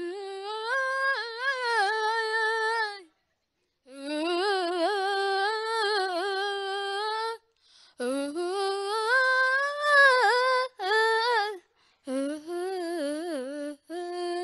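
A 12-year-old boy singing unaccompanied into a microphone: one high, clear voice in five held, gently wavering phrases, each broken off by a short silence.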